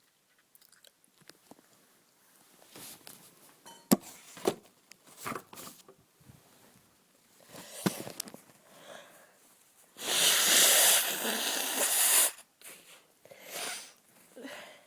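Breathy, wheezy noises and small crackling clicks from a person with a bad cold. About ten seconds in comes a loud rushing noise lasting about two seconds.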